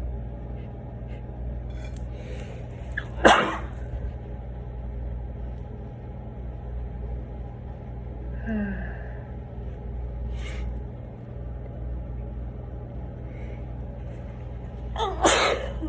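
A person sneezing twice into a tissue, about twelve seconds apart, each sneeze preceded by a short intake of breath. A steady low hum runs underneath.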